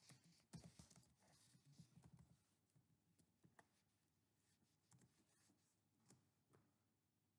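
Very faint computer keyboard typing in quick clicks for about the first two seconds, then a few sparse single clicks of keys or a mouse, all close to silence.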